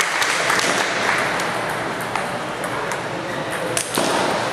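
Table tennis balls clicking off bats and table tops in quick, irregular strikes during a rally, over the steady hubbub of a busy hall with other tables in play.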